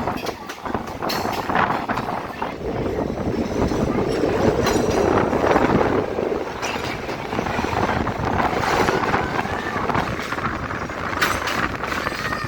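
Passenger train running, heard from on board: a steady rumble of the carriage on the rails with scattered clicks and rattles.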